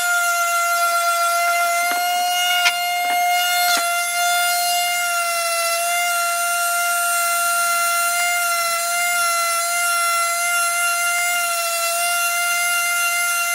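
Handheld electric detail sander running with a steady high-pitched whine, with a few sharp knocks about two to four seconds in as it is worked against the wood.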